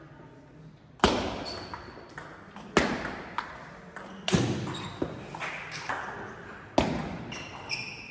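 Table tennis rally: the celluloid-type ball being struck by rubber-covered paddles and bouncing on the table, a series of sharp clacks and short pings that start with the serve about a second in. The hits echo in a large sports hall.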